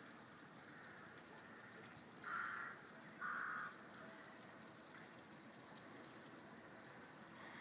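A crow cawing twice, two harsh calls about a second apart, over a faint steady hiss.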